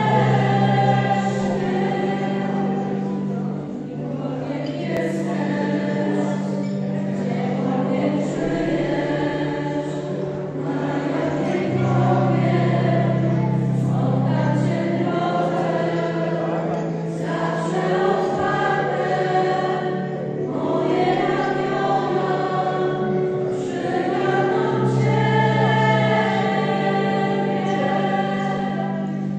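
Small mixed vocal ensemble of men and women singing together, over long steady low notes that shift every few seconds.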